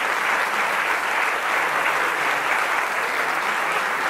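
Audience applauding steadily, a dense, even clapping that does not let up.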